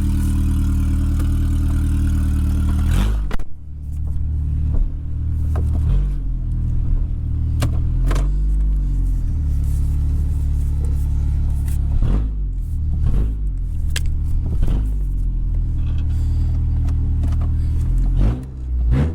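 Honda Accord's F23 inline-four engine idling, its note changing about three seconds in and then running low and steady, with scattered sharp clicks.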